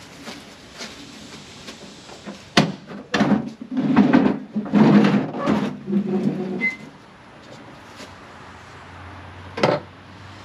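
Hood of a John Deere 2155 tractor being unlatched and raised: a sharp click, then a few seconds of clattering and scraping from the sheet-metal hood, and another sharp clack near the end.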